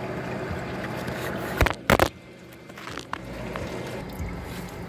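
Engine oil draining in a steady stream from the oil pan's drain hole into a drip pan. About a second and a half in there are two sharp knocks close together, after which the pouring sound is quieter for a moment and then builds back up.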